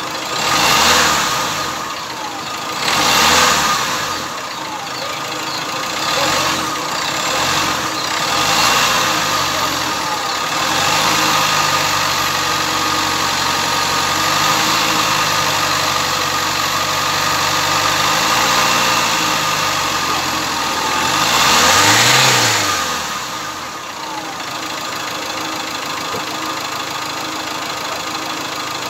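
Chevrolet Spin 1.3-litre turbo-diesel engine running, revved up and back down in several short blips: near the start, about three seconds in, and a longer one a little after twenty seconds. After that it settles to a steady idle. This is its test run after turbo and intercooler repairs.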